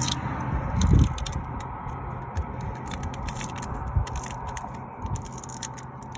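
Tire plug kit tools being handled: scattered scraping and crackling clicks over a low steady hum.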